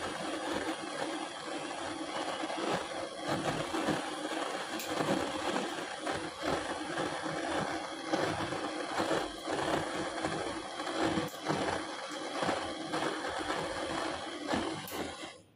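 A small motorised workshop tool running steadily, with irregular clicks and rattling of metal work against it.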